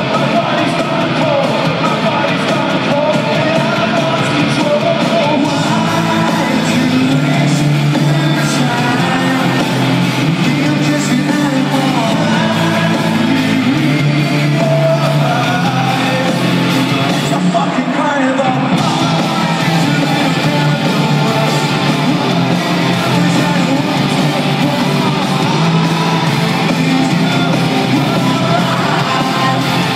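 Live rock band playing loud, distorted rock with singing, heard from the arena seats with the hall's echo.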